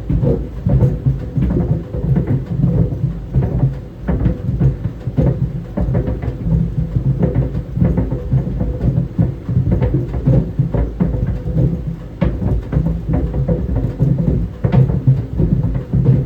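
Tennis balls tumbling in a running clothes dryer: a continuous, irregular stream of dull thuds against the drum over the machine's steady low rumble.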